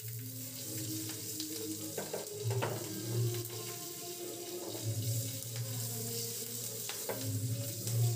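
Green and dried red chillies frying in hot oil in a pan, an even sizzle of the tempering (tadka), with a few sharp clicks as the pan is moved on the burner.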